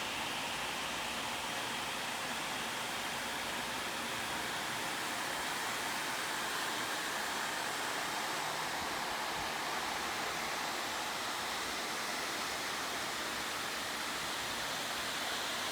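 Cooling fans of a twelve-GPU cryptocurrency mining rig running together, a steady, even whooshing hiss with no change in speed.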